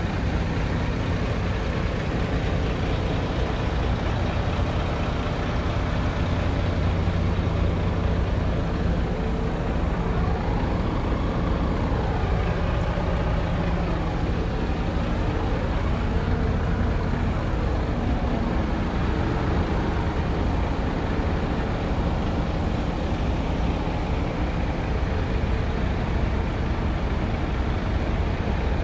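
Scania R tractor unit's diesel engine idling steadily.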